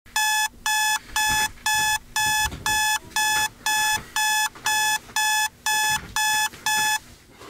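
Electronic wake-up alarm beeping: a steady run of identical short high beeps, about two a second, that stops about seven seconds in.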